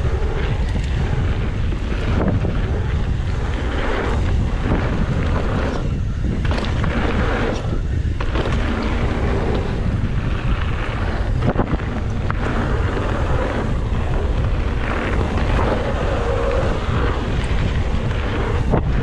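Wind buffeting a handlebar-mounted GoPro's microphone as a mountain bike rides into a headwind: a steady, heavy low rumble and hiss, with a couple of sharp clicks a little past halfway.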